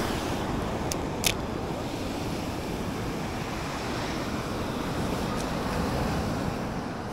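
Sea waves washing on a pebble shore, a steady rushing noise mixed with wind on the microphone, with a sharp click or two a little over a second in.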